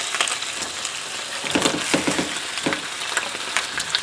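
Slices of raw pumpkin sliding off a wooden cutting board into a frying pan of hot oil, knocking as they land a few times over a steady sizzle.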